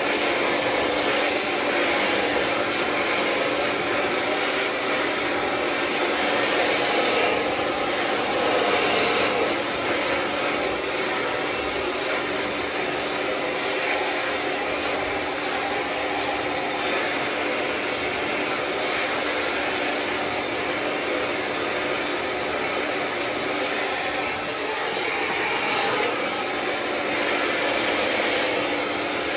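BaBylissPRO handheld hair dryer running steadily: a constant rushing blow over a steady motor hum, swelling a little now and then as it is moved about the head.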